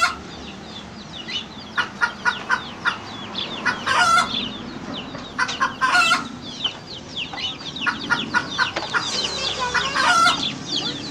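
A flock of chickens: an adult chicken giving short, repeated clucks while its chicks keep up a busy, high peeping, thickest near the end.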